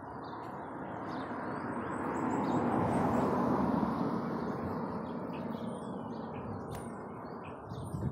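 Birds chirping over a loud rushing noise that swells to a peak about three seconds in, then slowly fades.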